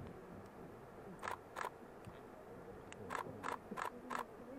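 Sharp clicks of a camera being handled: two a little over a second in, then four more in quick succession in the second half, over a low steady background.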